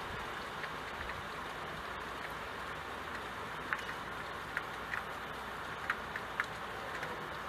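Steady hiss of rain with single drops ticking sharply on window glass now and then, several in the second half.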